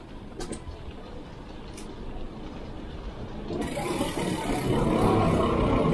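Riding noise from a mountain bike in a narrow alley: a low rumble with a few light clicks. A bit past halfway, a louder rushing noise starts abruptly and builds toward the end.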